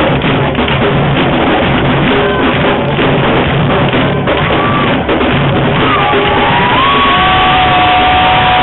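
Afro-Brazilian drum ensemble playing a loud, dense groove. Long held voice calls ring out over the drumming in the last few seconds.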